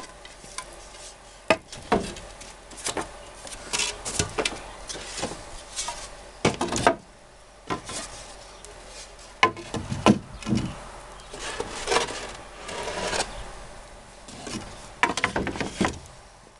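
Wooden boards being handled and pulled from a stack leaning against a wall: irregular knocks and clatters of wood on wood, with scraping and rubbing as the boards slide against one another.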